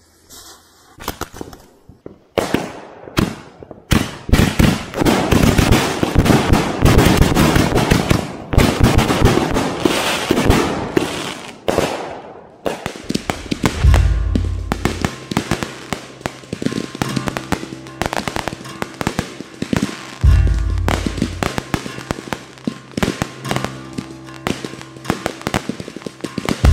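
Aerial fireworks going off: a dense, rapid run of bangs and crackles begins about two seconds in. From about halfway, music comes in beneath the continuing crackle, with deep booms every several seconds.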